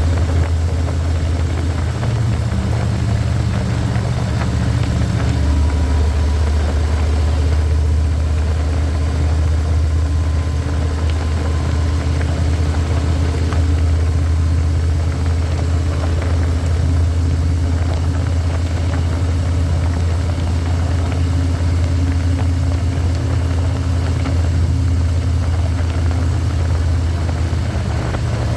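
Harley-Davidson Electra Glide Standard's Milwaukee-Eight V-twin running steadily, a low drone that shifts slightly about five seconds in.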